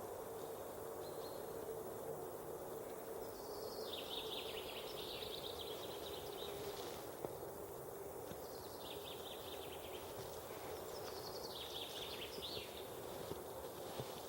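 A songbird singing three trilled phrases, each a couple of seconds long, starting high and dropping into a rapid trill, over a steady background hiss.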